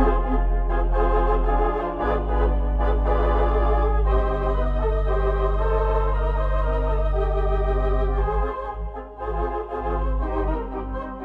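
Organ music: sustained chords with a wavering vibrato over long held bass notes, thinning out briefly about eight seconds in before the chords resume.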